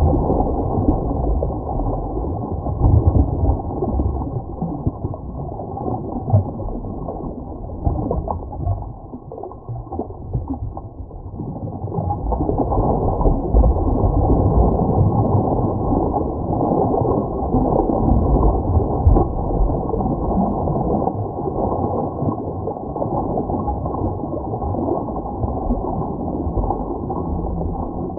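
Muffled rushing stream water, loud and uneven, dipping briefly about ten seconds in, with a few low thumps.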